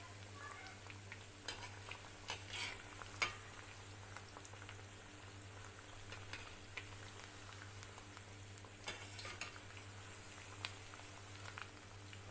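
Noodle-poha cutlets deep-frying in hot oil in a kadhai: a steady, faint sizzle. A metal slotted spoon clicks and scrapes against the pan a few times, the sharpest click about three seconds in.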